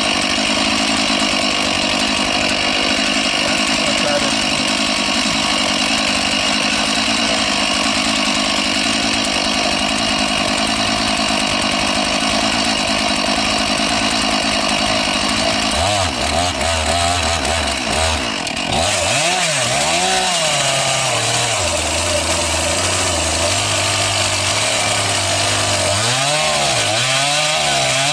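Chainsaw on an Alaskan chainsaw mill running flat out, ripping cedar lengthwise into boards. About halfway through, its pitch drops and wavers up and down as the engine labours under the load of the cut.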